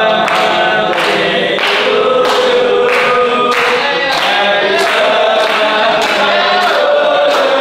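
Music: several voices singing together over a steady beat.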